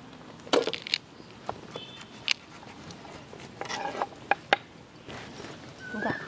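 A ripe pomegranate being pulled apart by hand: scattered sharp cracks and snaps as the scored rind splits, with a loud cluster about half a second in and more around two and four seconds in.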